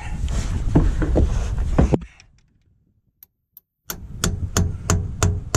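Hammer tapping on the metal bell housing of a truck gearbox around its bolt holes, done to free a gearbox that has seized to the engine. A few clattering knocks come first. About two seconds in there is a short silence, then a steady run of about three ringing taps a second.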